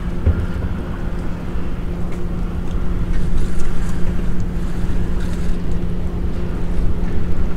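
Wind rumbling on the microphone in a small open boat, with a steady low hum running underneath.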